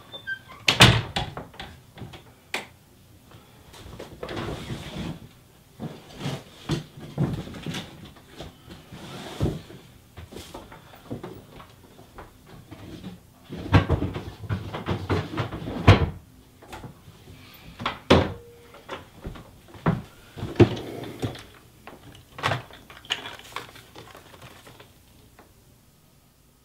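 Wooden closet doors and drawers opening and closing, with irregular knocks, clunks and rustling as someone rummages through a closet. The sounds die away near the end.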